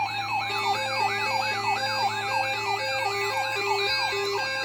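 Several electronic siren tones sounding together: a fast wail sweeping up and down about three times a second, a hi-lo two-tone alternating underneath, and higher steady and warbling tones above.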